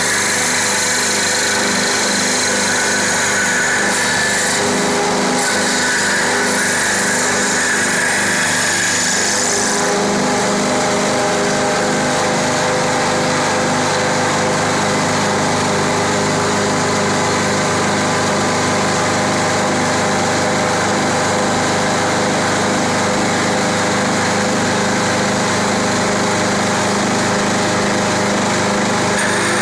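CNC wood lathe running, a steady motor hum with a bright, hissing cutting noise from the tool on the wood that drops away about ten seconds in.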